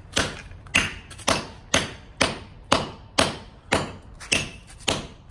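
Steel axe blade chopping down on a hard rock again and again, about two sharp hits a second, each with a short ring. The edge is being deliberately dulled against the stone.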